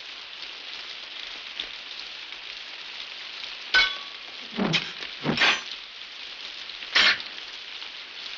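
Steady heavy rain in a film fight soundtrack, broken about halfway through by a sharp metallic clang, then a few short loud hits and another sharp strike near the end.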